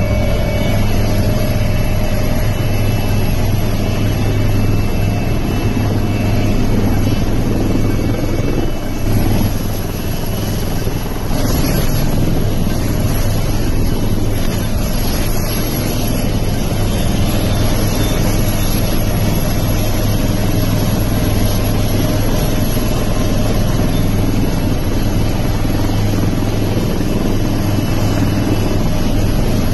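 Army helicopter's engine and rotor heard from inside the cabin: a loud, steady drone with a strong low rotor hum.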